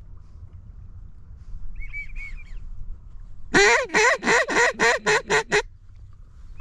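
A few faint whistles typical of drake wigeon, then a loud, close run of about eight quacks stepping down in pitch: a hen mallard call blown in a descending greeting cadence to work the ducks.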